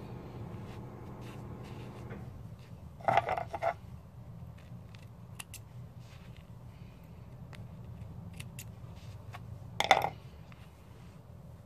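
Small spring-loaded thread snips handled on a wooden tabletop: a short rattling clatter about three seconds in and a single knock near the end, with a few faint sharp clicks of the blades cutting thread between them. A steady low hum runs underneath.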